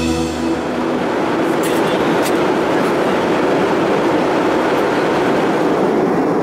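Steady cabin noise of an Airbus A321 in flight: an even rush of engine and airflow noise. Organ music cuts off in the first half-second.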